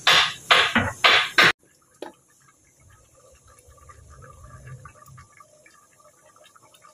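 A loud opening sound cuts off abruptly about a second and a half in. After it, a pot of yakhni pulao simmers faintly on the stove, with soft small bubbling pops, strongest around the middle.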